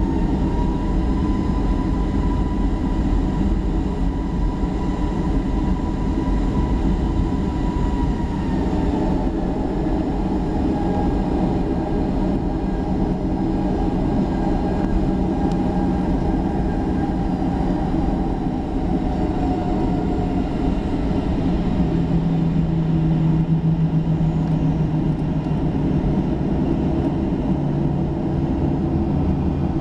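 Boeing 737-800's CFM56-7B jet engines running at taxi power, heard inside the cabin over the wing: a steady rumble with a high whine that dips in pitch about eight seconds in and then slowly drifts lower.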